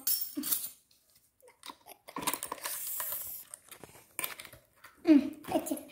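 Handling noise from a small wooden toy kitchen set and its miniature steel pots: a rustling, scraping stretch of about two seconds, then a single knock.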